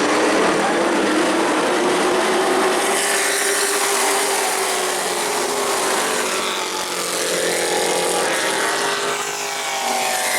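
Race trucks' engines running at racing speed on a short track, several at once, their pitches sliding up and down as they pass.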